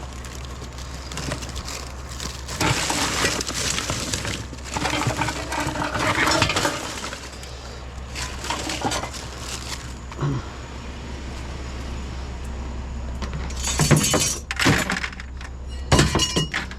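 Scrap metal and junk being rummaged through and handled: bursts of rattling and clinking, then several loud clanks near the end.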